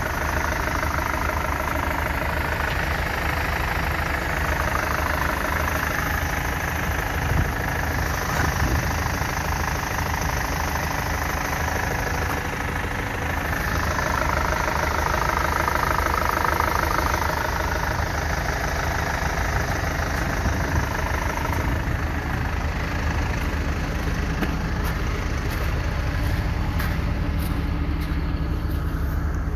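BMW car engine idling steadily while it warms up from a cold start in freezing weather.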